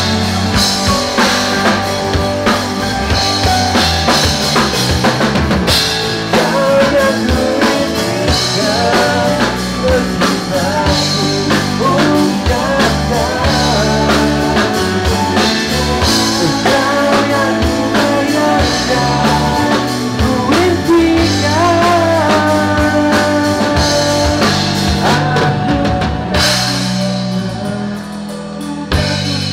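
Rock band playing live through the stage sound system during a sound check: drum kit, bass and guitar. The drums drop out near the end.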